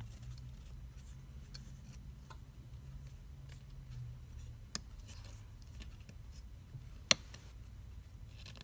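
Faint small clicks and taps of a smartphone's internal parts being handled and fitted during reassembly, with one sharper click about seven seconds in, over a low steady hum.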